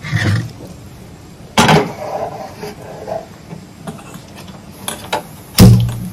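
Metal cookware clanking on a single-burner gas stove as a saucepan is swapped for a pressure cooker, with one loud clank early on. A few light clicks follow, then a loud knock near the end as the burner is lit with a gas lighter.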